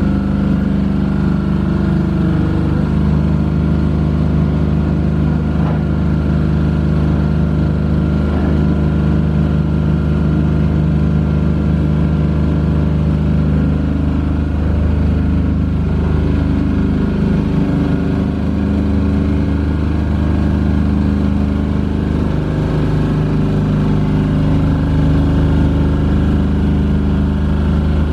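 Hatz diesel engine of a TowerLight VB-9 lighting tower running steadily, driving its 4 kVA generator.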